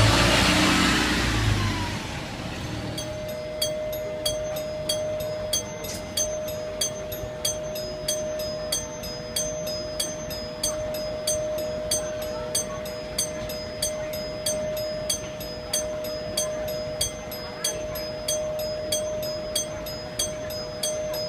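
A Japanese bus's left-turn warning chime sounds as a steady, sustained two-tone ring over regular ticking at about one and a half ticks a second. For the first two seconds a louder rush of vehicle noise covers it.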